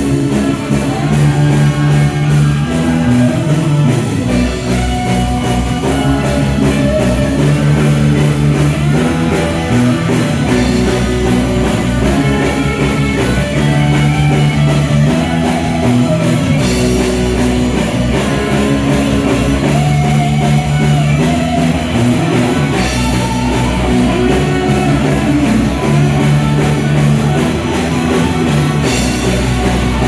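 Live rock band playing loud and steady, with electric guitars and a drum kit, a chord pattern in the low end repeating every few seconds.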